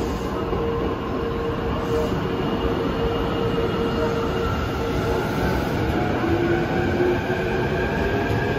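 JR East 651 series electric train pulling out slowly: a steady running rumble from the wheels, with a faint whine that slowly climbs in pitch from about halfway through as it gathers speed.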